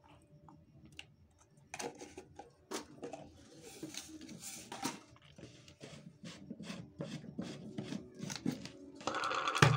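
Kitchen handling noises: scattered clicks, taps and rustling as spices are spooned into a stainless-steel mixing bowl, with a louder brief noise near the end.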